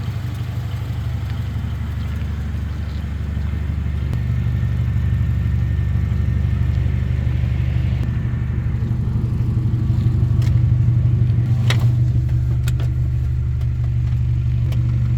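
A 2000 Honda CR-V's four-cylinder engine running at a steady idle, getting a little louder from about four seconds in, with a few sharp clicks near the end.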